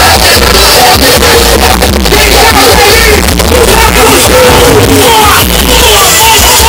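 Loud music with heavy bass and a singing voice, played through a pickup truck's car sound system.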